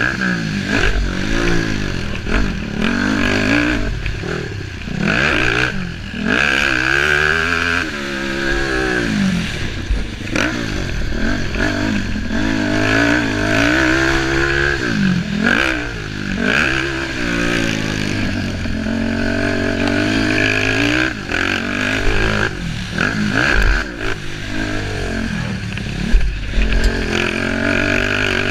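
Racing engines running hard. Their pitch climbs and drops again every second or two as they rev up and back off.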